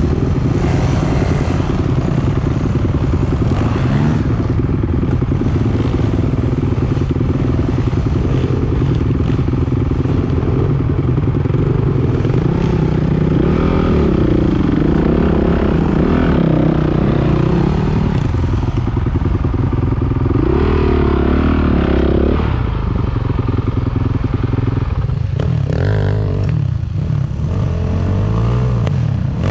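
Enduro dirt bike engines running at low speed on a rocky climb, the revs rising and falling in throttle bursts, most clearly about halfway through and again a few seconds later.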